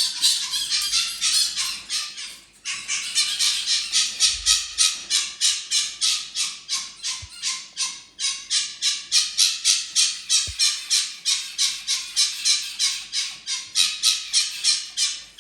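Fennec fox giving a long run of rapid, high-pitched yelps, about four a second, broken by two short pauses.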